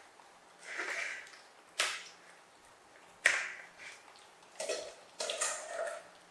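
Young macaques eating rice from plates: about five short sounds, breathy noises mixed with sharp clicks, spread across the few seconds.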